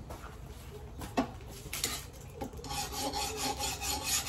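A file scraping in quick, rhythmic strokes along a heat-treated high carbon steel knife blade, beginning about two-thirds of the way in after a light knock about a second in. This is a file test of the blade's hardness.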